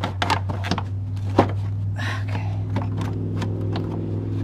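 Irregular clicks and knocks of hands working plastic air-intake hoses and housing parts under a car's hood, over a steady low hum.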